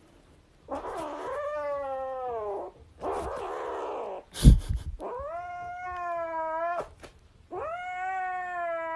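A domestic cat giving three long, drawn-out meows, each rising at the start and then holding or sagging slightly. Between the second and third there is a sharp, loud knock about four and a half seconds in.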